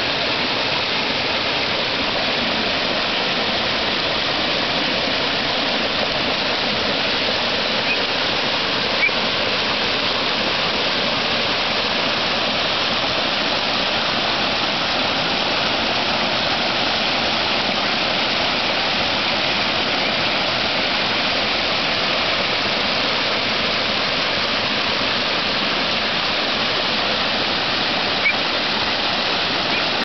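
Small waterfall pouring down a rock face: a steady, even rush of falling water.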